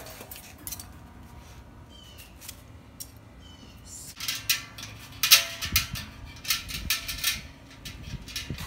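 Metal grill brackets clinking and scraping against the stainless steel inner cylinder of a small Orion cooker as they are fitted by hand. A quiet start with a few faint clicks, then from about four seconds in a run of sharp metallic clinks.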